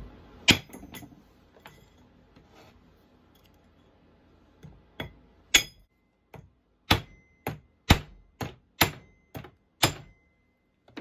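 Ball-peen hammer striking the rivets of a chainsaw chain's master link against a steel axe head, peening them over so they mushroom onto the link. Sharp metal taps: a few near the start, a pause, then a steady run of about two a second.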